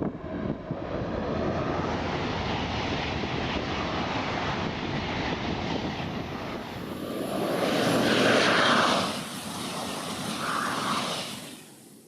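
A passing vehicle's steady rushing noise, swelling to its loudest about eight seconds in, then fading out at the very end.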